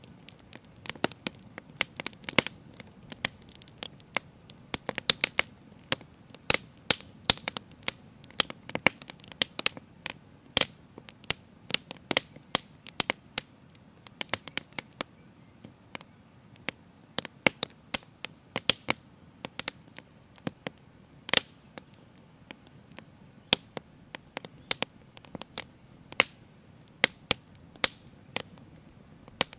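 Open wood fire crackling, with irregular sharp pops several a second over a faint low rush.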